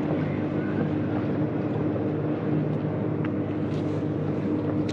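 Boat motor running with a steady, even hum.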